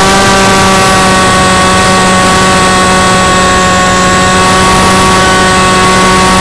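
Tek Sumo RC model's electric motor and enlarged propeller running steadily in flight, a loud, even whine heard from the onboard camera, with rushing air noise underneath.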